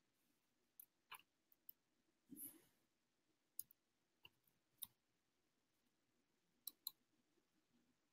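Near silence broken by a few faint, scattered clicks of a computer mouse, two close together near the end.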